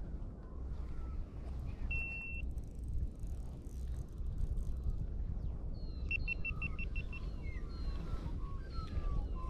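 Steady low rumble of wind on the microphone on open water, with birds calling in short falling whistles in the second half. A high beep sounds briefly about two seconds in, and a quick run of six short beeps at the same pitch about six seconds in.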